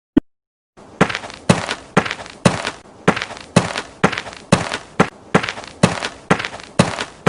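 Sound-effect clip: a single short click, then a regular series of sharp thuds, about two a second, for nearly seven seconds.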